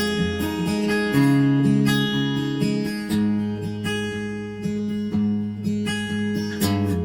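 Background music: an instrumental passage of strummed acoustic guitar, with no singing.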